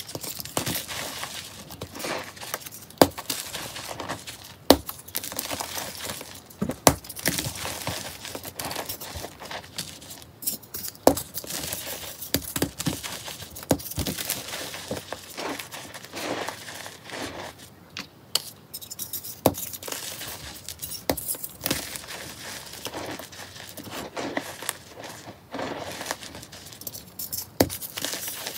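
Dried, powder-caked sponges and crumbly powder blocks being squeezed and broken by hand: dry crunching and crumbling with many sharp snaps, a few louder ones about 3, 5 and 11 seconds in.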